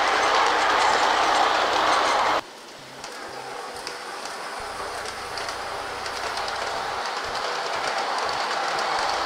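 G-scale model freight train rolling along its track, its wheels clicking over the rail joints. The sound drops suddenly about two and a half seconds in, then grows steadily louder as the train comes closer.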